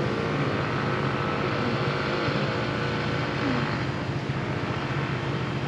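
Scooter engine running steadily while riding, with road and wind noise; the upper part of the noise eases slightly about four seconds in.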